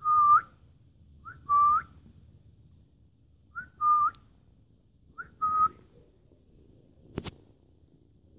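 A person whistling a short two-note call, as to call a dog, four times over about six seconds: each call is a quick rising chirp followed by a longer steady note that turns up at the end.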